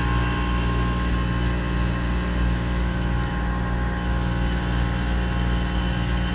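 Trane Odyssey commercial heat pump outdoor unit running during its defrost cycle, giving off a steady, even hum.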